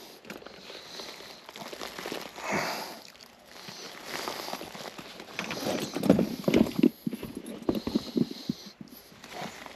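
Rustling and irregular knocks of a person crawling and searching around in an attic, with a cluster of louder knocks about six to seven seconds in.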